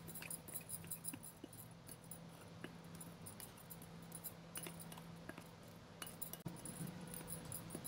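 Metal spoon stirring a dry powder mix in a glass bowl: faint scrapes and scattered light clinks of the spoon against the glass, over a low steady hum.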